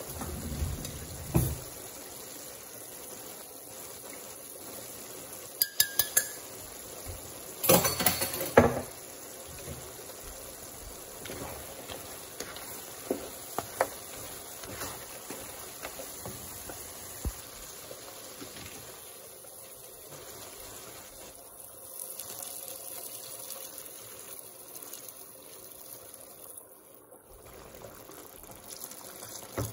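A wooden spatula stirs mutton pieces and curry powder in a pan, scraping and knocking against it, with a cluster of sharp knocks about eight seconds in. Under it runs a steady low hiss from the cooking pan.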